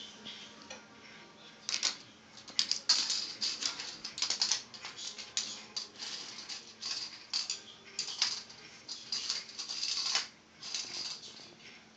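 Cat's claws clicking and skittering in irregular bursts on a hardwood floor as it scrambles and pounces. An electric fan runs with a faint steady hum underneath.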